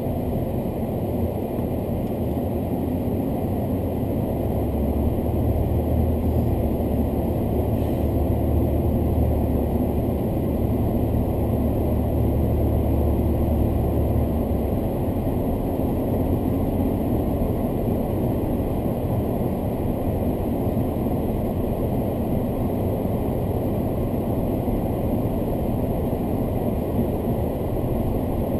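Car engine and road noise heard from inside the cabin while driving: a steady low rumble that grows heavier from about four seconds in until about fifteen seconds in.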